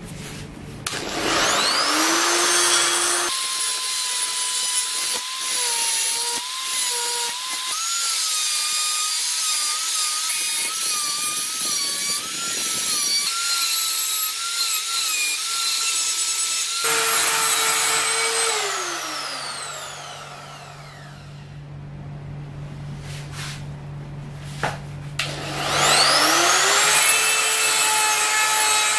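Electric die grinder with a small grinding stone, starting up about a second in and grinding steel, its whine wavering as the stone bites into the metal. About two thirds of the way through it is switched off and winds down, then it is started up again near the end.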